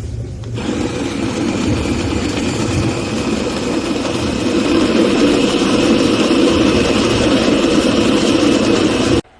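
Imarflex IBG-159C electric conical burr coffee grinder running, a steady loud motor whir that grows slightly louder and then cuts off suddenly near the end.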